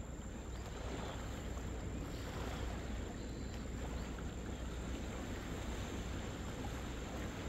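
Steady wind buffeting the microphone, a low rumble over the soft hiss of gentle surf.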